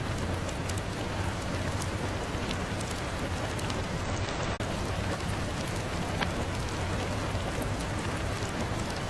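Steady rain, an even hiss with scattered faint ticks of drops. The top end drops out for about half a second and the level dips briefly about four and a half seconds in.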